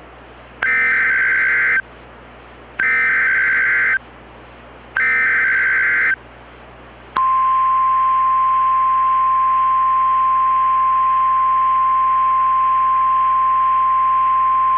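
Emergency Alert System header tones: three screeching digital data bursts about a second long, a second apart, then the steady single-pitched NOAA Weather Radio 1050 Hz warning alarm tone. It marks the start of a weather alert activation, here a freeze warning.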